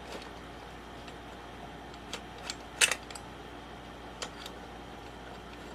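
A few light clicks and knocks with one sharper clack about three seconds in: a chainsaw's muffler and its parts being handled and set down during teardown.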